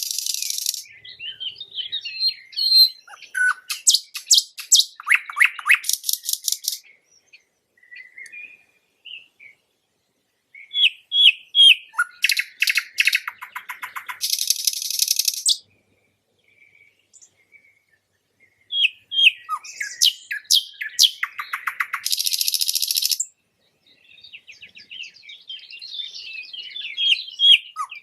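Nightingale singing: varied phrases of rapid repeated notes, trills and whistles, each a few seconds long, with short pauses between them.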